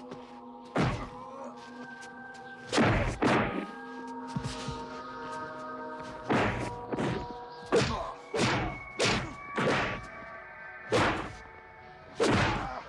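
Heavy punch impacts in a fistfight, about a dozen thuds at uneven intervals, some in quick pairs. Sustained music notes are held underneath.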